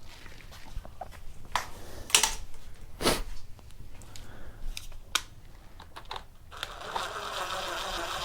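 Parts and tools being handled during disassembly of a Stihl FC91 edger: scattered light clicks and knocks, then from about two-thirds of the way in a steady rough scraping or rustling noise.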